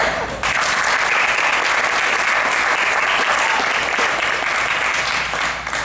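Audience applauding: a dense patter of many hands clapping that starts about half a second in and dies away near the end.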